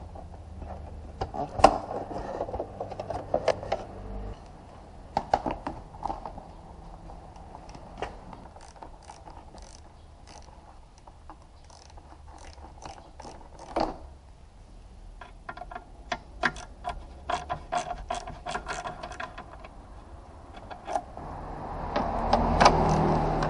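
Hand tools working the bumper fasteners of a Mini Cooper S: scattered clicks and knocks, with a run of rapid ratchet clicking in the second half and a louder, noisier stretch near the end as a socket on an extension turns a bumper bolt.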